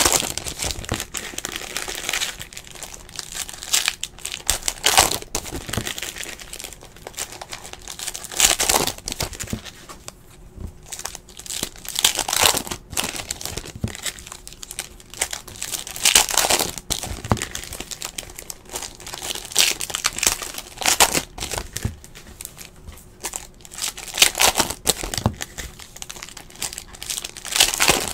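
Foil trading-card pack wrappers crinkling and being torn open by hand, in bursts every few seconds, with cards shuffled between them.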